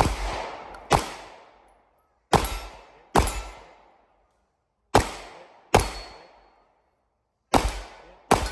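Gunshots fired in quick pairs, a double tap on each target: four pairs, the two shots of a pair about a second apart, each shot trailing off in a long echo.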